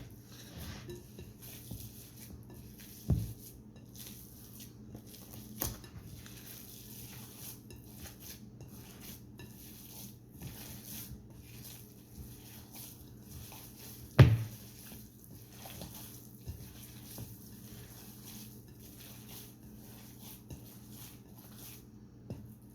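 A ground meat and cheese mixture being mixed in a bowl: a steady run of light clicks and scrapes against the bowl, with sharper knocks about three and six seconds in and a loudest knock about fourteen seconds in.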